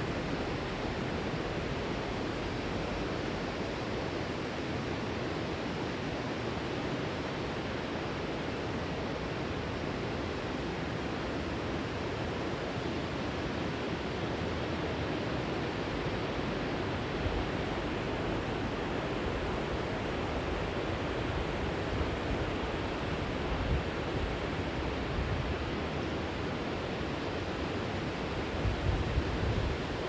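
Steady rush of river water pouring over a low weir. A few low gusts of wind buffet the microphone, most strongly near the end.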